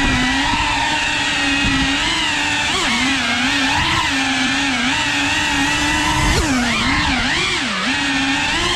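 Cinewhoop FPV quadcopter's motors and ducted propellers whining, the pitch wavering with throttle and swooping down and up several times in the second half.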